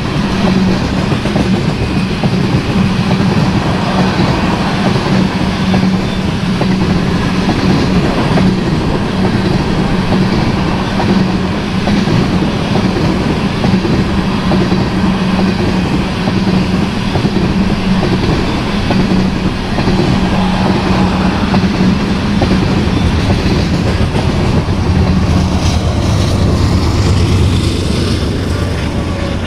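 Freight train of tank cars rolling past: a steady rumble and clatter of steel wheels on rail. The sound changes and thins a few seconds before the end as the last cars go by.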